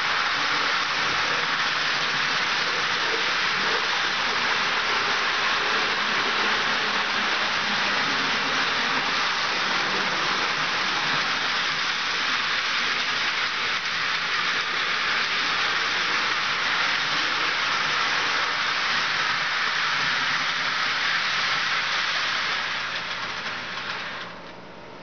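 HO-scale model freight trains running on the layout track: a steady rattling hiss of metal wheels rolling on the rails, dropping away near the end.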